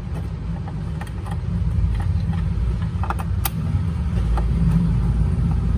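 Steady low rumble with a few light clicks and taps, the sharpest a short cluster a little past halfway.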